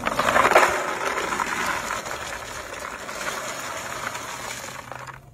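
Hundreds of hollow cardboard firecracker tubes poured from one plastic tub into another, a dense rattling clatter of tubes tumbling against each other and the tub. Loudest about half a second in, then easing off.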